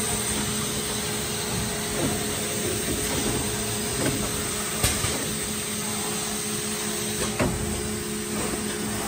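Injection molding machine and its in-mould-labelling robot running: a steady machine hum with two held tones, broken by a handful of sharp clicks and knocks, the sharpest about halfway through.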